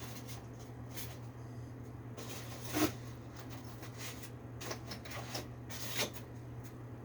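Hands working on a window air-conditioner's parts: scattered light clicks, taps and rubbing, with two sharper knocks about three and six seconds in, over a steady low hum.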